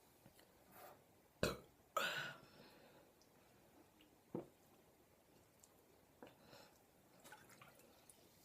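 A person's short burp about two seconds in, just after a sharp click, with a few faint clicks later.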